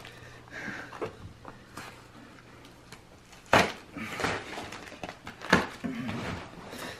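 Duct tape crinkling and tearing as it is pulled and peeled off cloth trousers, with two sharp snaps about three and a half and five and a half seconds in.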